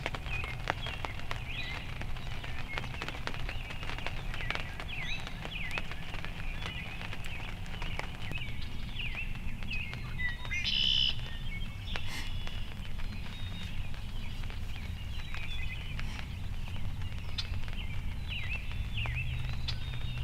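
Small songbirds chirping and calling over and over, with one louder, brighter call about halfway through, above a steady low rumble and scattered faint ticks.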